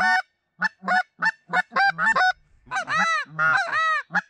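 A hunter blowing a Canada goose call at a distant flock: a quick run of short clucks, then drawn-out honks that rise and fall in pitch near the end.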